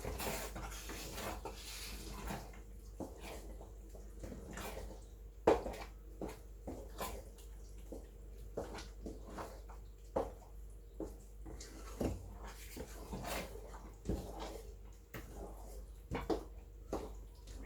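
Irregular clicks and knocks of a cooking utensil against a pot while the soup is stirred, with one sharper knock about five seconds in.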